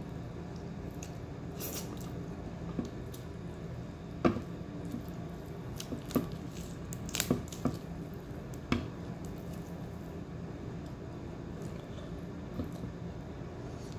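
Eating sounds: wet, squishy chewing with a handful of short sharp clicks, the loudest about four seconds in and several more a few seconds later, over a steady low background hum.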